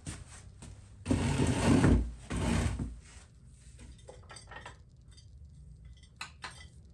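Handling noises at a workbench: a loud rushing scrape for about two seconds, then a scattering of light clicks and knocks.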